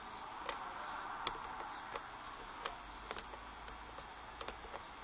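Small, sharp metallic clicks at irregular intervals, about a dozen, the loudest about a second in, from a lock pick working the pin stack of a six-pin Yale Y90S/45 pin-tumbler padlock during single-pin picking. A faint steady hiss runs beneath.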